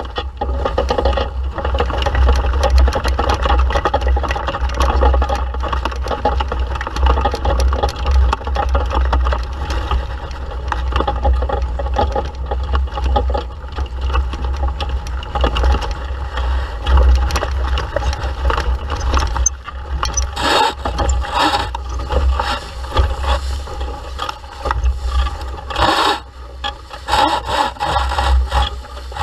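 Wind buffeting a boat-mounted camera's microphone over the rush and splash of water along a sailing dinghy's hull as it moves through the water. In the last third the splashes come sharper and more often.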